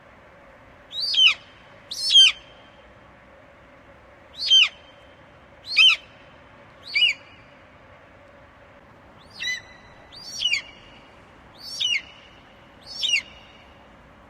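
An eagle giving a series of nine short, high-pitched calls, each falling sharply in pitch, spaced about one to two seconds apart with a longer pause in the middle.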